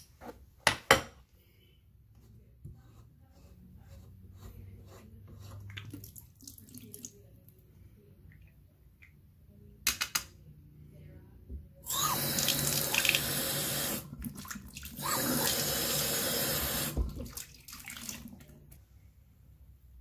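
Bathroom sink faucet with its aerator removed, turned on twice for about two seconds each, water running into the basin, with a few sharp clicks before.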